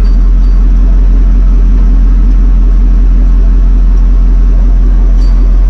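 Off-road truck's engine running at a steady speed: a loud, even low drone that holds without revving up or down.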